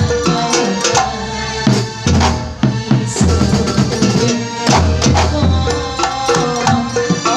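Live kuntulan music: terbang frame drums beating a quick, dense rhythm under a sustained melodic line.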